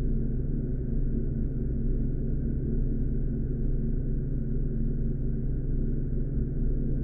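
Steady low drone made of several held low tones, unchanging throughout, with no strikes or rhythm.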